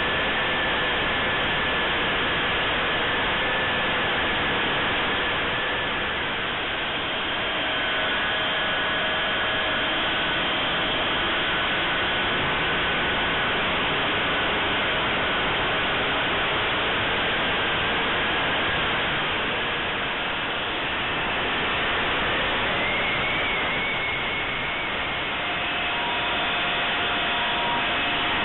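Electric ducted fan of a Durafly de Havilland Vampire 70 mm RC jet in flight, heard from a camera on the airframe: a steady rushing fan-and-airflow noise with faint whining tones that shift in pitch a few times, rising about 23 seconds in.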